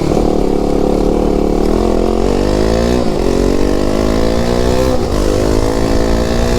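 KTM RC 390's single-cylinder engine accelerating hard: its pitch climbs steadily, then drops sharply at upshifts about three and five seconds in.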